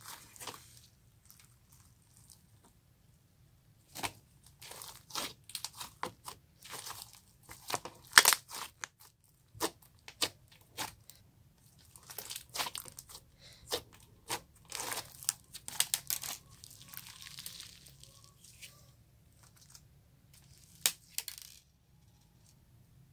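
Glossy slime being squished, stretched and folded by hand, giving irregular sticky clicks and crackling pops in bursts, with brief pauses between handfuls.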